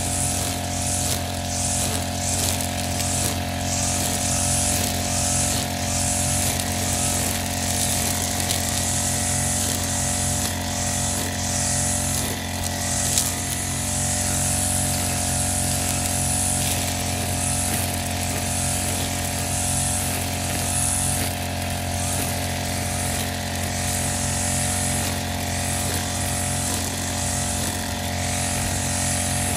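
Brush cutter engine running steadily at working speed, its nylon line head cutting through tall grass with irregular swishing.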